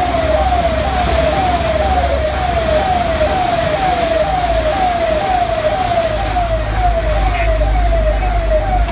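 Emergency-vehicle siren sounding in quick repeated falling sweeps, about two a second, over a low engine rumble and the rush of floodwater churned up by the vehicle.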